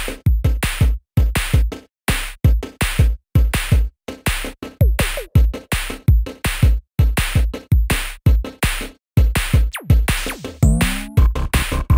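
Electronic background music with a drum-machine beat and deep bass kicks that stops briefly several times, with a synth sound gliding in pitch about ten seconds in.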